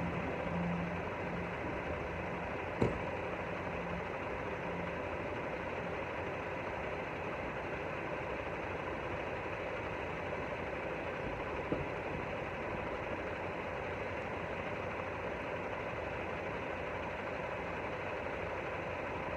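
Semi truck's diesel engine idling steadily, with two short clicks, one about three seconds in and one near twelve seconds.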